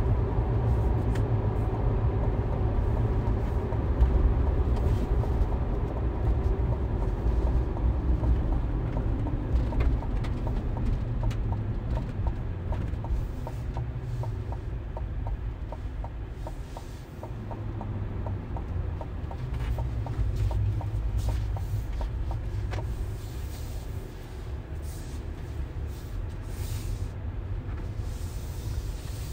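In-cabin road and engine noise of a 2022 GMC Sierra AT4-X pickup with its 6.2-litre V8: a steady low rumble that eases as the truck slows from highway speed to town speed. A run of light ticks sounds midway through.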